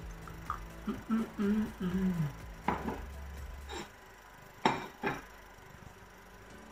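A person humming briefly with a falling pitch, then four sharp knocks and clinks from kitchenware being handled.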